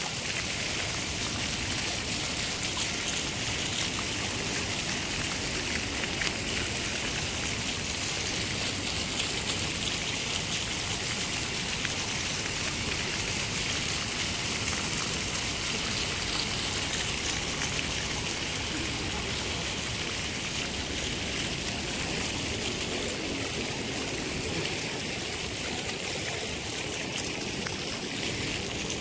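Rows of small ground-level fountain jets splashing onto stone paving, making a steady hiss of falling water.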